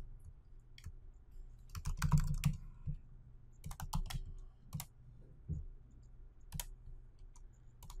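Typing on a computer keyboard: short runs of quick keystrokes, the densest about two seconds in, then single clicks spaced through the rest.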